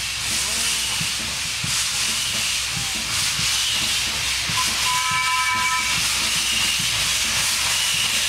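Replica Teng Yun steam locomotive approaching, hissing steadily as it vents steam low at both sides, with one short whistle of about a second roughly five seconds in.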